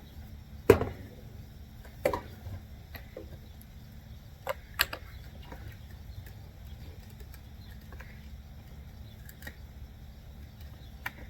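Scattered knocks and clicks of plastic parts being handled while working a car door trim panel's wiring connector loose: a sharp knock about a second in, another about two seconds in, a close pair near five seconds, and a lighter click near the end.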